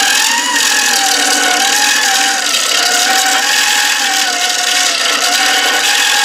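A rotary texturing cutter on a wood lathe, held against spinning end grain and making a loud, steady rasping buzz. A whine in it wavers up and down in pitch as the tool is swept back and forth.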